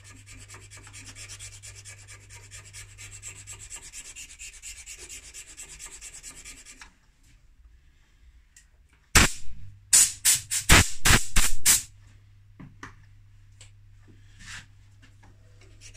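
Hand file rasping back and forth in quick, even strokes on a vulcanite pipe stem held in a lathe chuck, stopping about seven seconds in. After a short pause come several loud, sharp knocks and clatters in quick succession, and then a few fainter ones.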